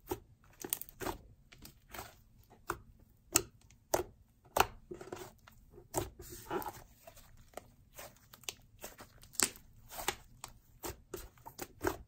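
Thick icy slime pressed, poked and pulled by fingers, giving irregular sharp pops and clicks, a few each second.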